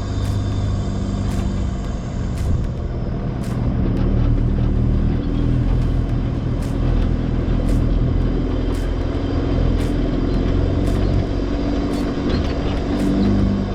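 A 4WD vehicle driving at a steady pace: engine running and road rumble, with a faint regular click about once a second.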